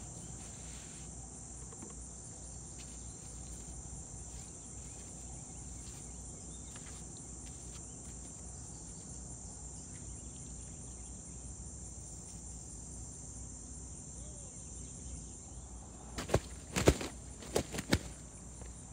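Steady, high-pitched chorus of insects droning. About sixteen seconds in comes a short cluster of sharp, loud knocks and clatters from the camera being picked up and repositioned.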